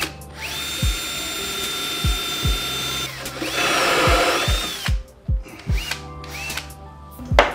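Cordless drill spinning up and boring through a plywood panel into a scrap wood block clamped behind it as a backer against tear-out. The steady motor whine turns into a louder cutting noise about halfway through, then winds down with a falling pitch. A sharp clatter comes right at the end.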